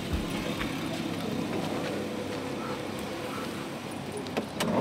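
Steady outdoor street ambience, with a few faint clicks near the end.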